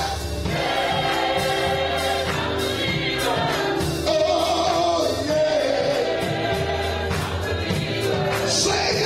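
Gospel choir singing with live band accompaniment: held sung notes over a steady bass and drum beat.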